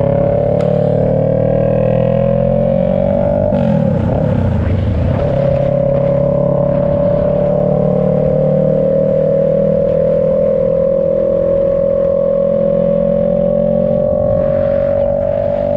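Kawasaki Ninja 650 parallel-twin engine running loud through a short straight-pipe exhaust with no muffler. Its note climbs slowly for a few seconds, breaks up briefly about four seconds in, then holds nearly steady.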